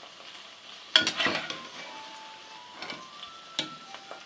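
Okra frying in hot ghee in a kadai, with a faint steady sizzle. A metal utensil clanks and scrapes against the pan about a second in and again a few times near the end, as the fried okra is lifted out.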